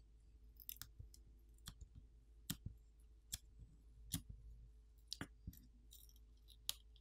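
Faint, scattered clicks and ticks, about a dozen, from fingers peeling adhesive tape off a smartphone's internal display-cable connector and handling the opened phone.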